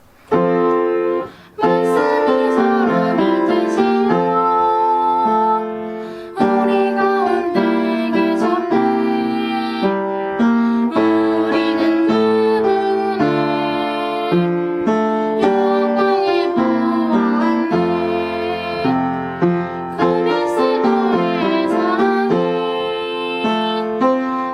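Piano music playing slow sustained chords and melody, starting just after the opening.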